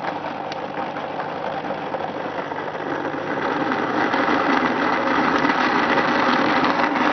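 Noisy electric blender running at full speed, pureeing soft dates with milk into a thick drink: a steady motor whir with churning liquid that grows a little louder partway through.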